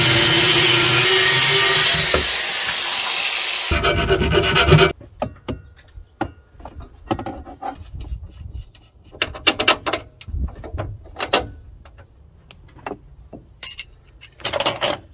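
Angle grinder cutting off a metal tab on a bracket, running loud and steady for about five seconds before it stops. After that come scattered short clicks and knocks of parts being handled and fitted.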